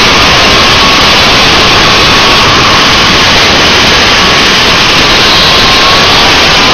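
Loud, overdriven wind noise rushing over a helmet-mounted camera's microphone, with the high whine of a 125 cc two-stroke kart engine running at racing speed underneath, its pitch wavering slightly.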